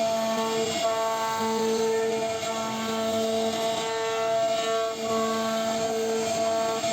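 CNC router spindle running and carving wood: a steady whine made of several tones over a rasp of cutting, its strength rising and falling as the bit meets more or less wood.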